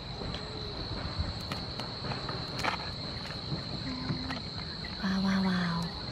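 Steady high-pitched chirring of insects, with a few faint cracks as cooked mantis shrimp shells are pulled apart by hand. A brief low voice-like hum about five seconds in is the loudest sound.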